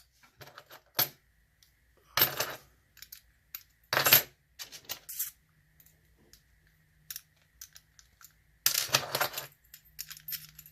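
Metal clicks and rattles of a padlock and its keys being handled and locked: scattered sharp clicks, with longer rattling clusters about two seconds in and again near the end.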